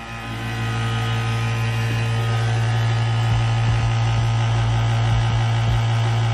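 Vacuum pump running with a steady hum, pulling a vacuum on a vacuum pot to draw the air bubbles out of mixed epoxy.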